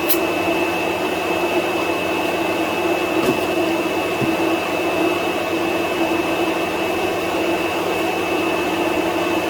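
Two electric radiator cooling fans running steadily, with a steady high whine over the rushing air. A brief click sounds near the start and again about three seconds in.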